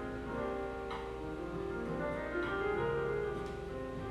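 Background music with long held notes shifting from chord to chord.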